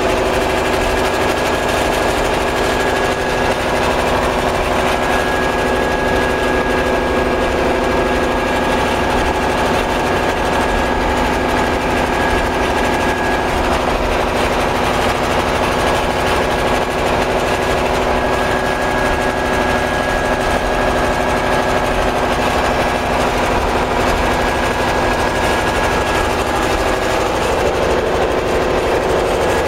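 Biomass gasification power plant machinery running steadily: a constant, loud engine-like drone with several steady hum tones and no change in speed.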